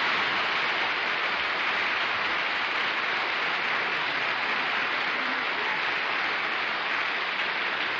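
Studio audience applauding, a dense, steady clapping that eases a little near the end.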